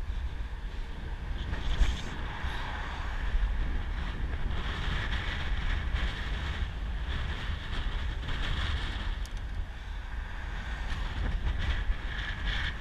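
Wind rushing over the microphone of a camera riding on a moving road bike, with a low rumble from the tyres on asphalt. A short knock sounds about two seconds in.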